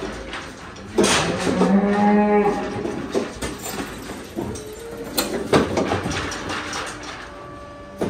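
A Holstein cow mooing: one long low call lasting about a second and a half, starting about a second in, with a few sharp knocks scattered around it.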